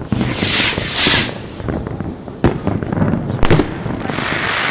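Aerial fireworks going off: two bursts of hissing crackle in the first second or so, sharp bangs about two and a half and three and a half seconds in, and a rushing hiss near the end.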